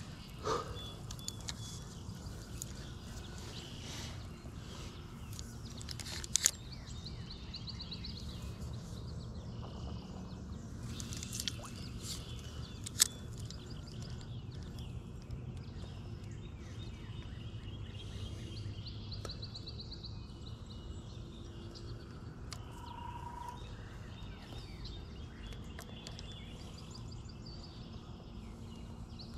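Outdoor lakeside ambience: a steady low rumble with small birds chirping and trilling now and then. A few sharp clicks stand out, the loudest about six and thirteen seconds in.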